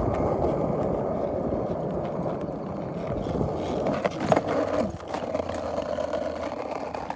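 Wheels rolling and rattling over a bumpy surface, slowly easing off, with a single knock about four seconds in.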